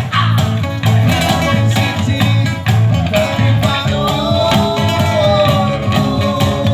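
Live acoustic band music: a man singing into a microphone over strummed acoustic guitar, electric guitar and a cajon keeping a steady beat. A long held, wavering sung note runs through the middle.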